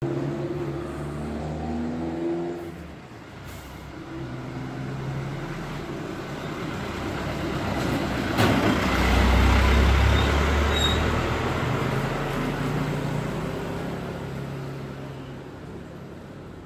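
Motor vehicle traffic going past, engines running, with a louder low rumble from a larger vehicle swelling from about eight to twelve seconds in and then fading.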